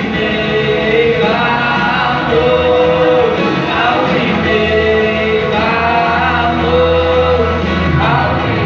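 A small group of women and a young man singing a Portuguese-language gospel song together through a microphone, with long held notes.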